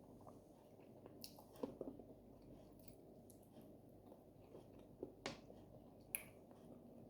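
Faint close-miked chewing of oat fufu and slimy okra soup: soft wet, squishy mouth sounds, with a few sharp lip-smacking clicks.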